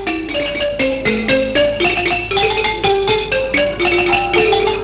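Music led by a xylophone playing a quick melody of struck, ringing notes, several a second, stepping up and down in pitch.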